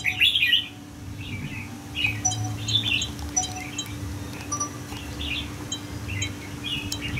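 Small birds chirping, short bright calls repeating every second or so, over a steady low hum.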